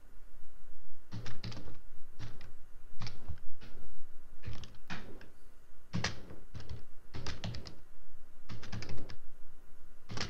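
Typing on a computer keyboard: short runs of keystrokes with brief pauses between them.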